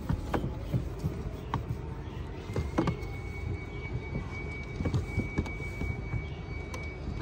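Scattered small taps and scrapes from a paintbrush dabbing resin onto a fibreglass roof sheet and being dipped into a bucket, over a steady low rumble and a faint steady high tone.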